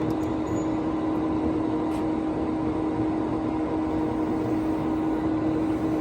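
A large engine lathe running steadily: an even machine hum with one constant mid-pitched tone and no change in speed.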